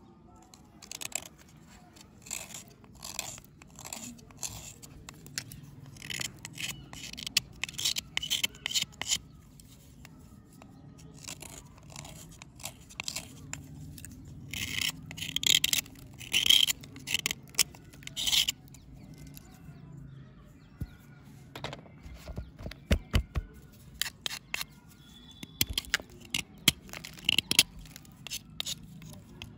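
A metal knife blade scraping and chipping a dry, chalky block, giving repeated short scrapes and crunches in uneven bursts.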